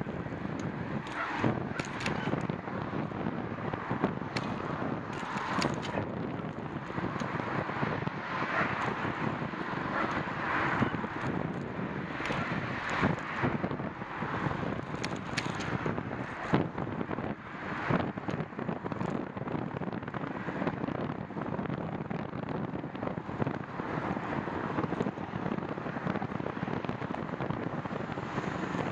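Wind rushing over the microphone of a handlebar-mounted camera on a moving bicycle, with about ten irregular sharp knocks and rattles as the bike rolls over cracked asphalt.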